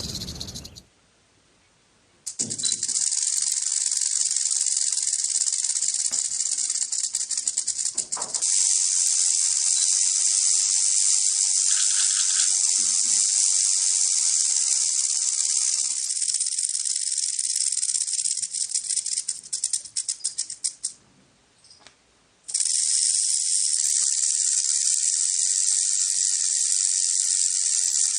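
Rattlesnake shaking its tail rattle: a continuous, high buzzing hiss that stutters in places and cuts out twice for a second or so, near the start and about three quarters of the way through, before starting up again.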